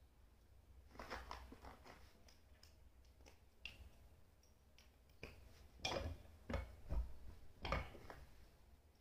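Light clicks and knocks of hands handling a small hand arbor press and its metal slug-die parts: a few scattered ones, then a cluster of sharper knocks from about five seconds in.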